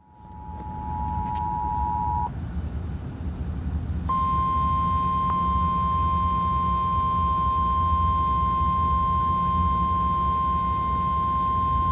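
Emergency Alert System attention signal: two steady tones sounding together for about two seconds, then cutting off. After a short gap, a single slightly higher steady tone, the NOAA Weather Radio warning alarm, starts about four seconds in and holds, announcing the severe thunderstorm warning. A low rumbling hum runs underneath.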